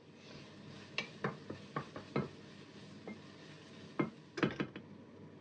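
Minced beef with onions frying in a non-stick pan with a steady sizzle, while a wooden spatula stirs it and knocks against the pan: a run of knocks from about one to two seconds in, and another near four seconds in.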